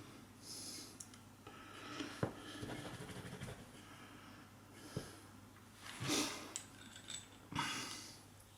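Faint handling of small brass tool parts: a few light clicks and short scratchy rubbing strokes.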